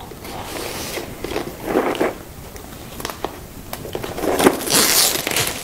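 Crinkling and rustling of plastic wrap and cardboard packaging as boxed board-game components are handled, with a few light clicks and knocks. The longest, loudest rustle comes about four and a half seconds in.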